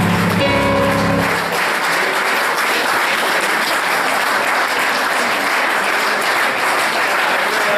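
A piece of music ends on a held final chord about a second and a half in, and an audience breaks into steady applause.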